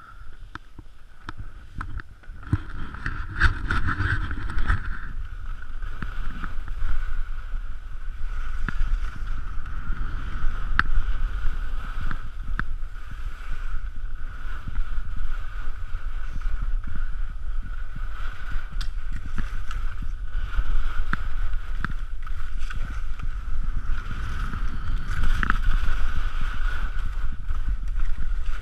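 Skis hissing and scraping over wind-packed snow on a downhill run, with a low rumble of wind buffeting the camera's microphone. It gets louder about two to three seconds in, once the run picks up speed.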